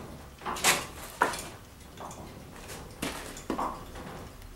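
Engine-hoist lifting chain clinking and clanking against a hanging rotary engine: a handful of sharp metal knocks and rattles, the loudest about a second in, and a few more about three seconds in.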